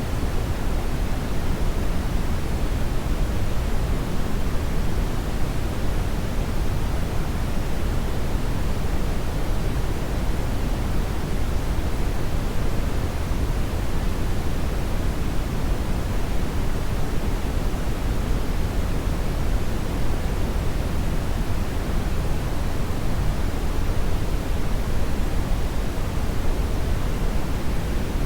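Hair dryer blowing steadily: a constant, even rush of air with no change in speed or pitch.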